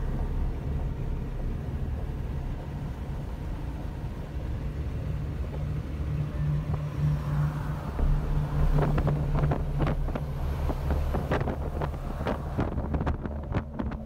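Steady low rumble with wind on the microphone. A run of short knocks and rustles comes in the second half.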